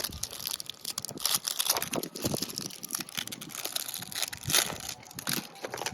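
Plastic wrapping of a Mini Brands toy capsule crinkling and tearing as it is pulled open by hand, in irregular crackles.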